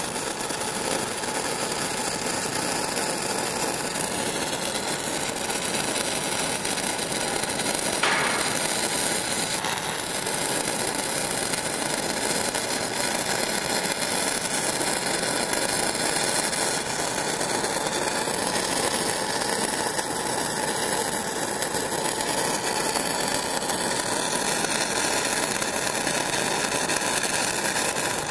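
Stick-welding arc of an E6010 electrode running a downhill root pass on beveled steel plate: a steady crackle and hiss, with one sharper crack about eight seconds in.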